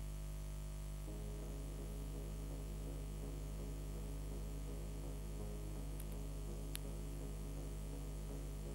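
Steady electrical mains hum with a buzz and some static, with no sound from the scene itself. A faint pulsing buzz joins it about a second in, and there is a single sharp click a little before the end.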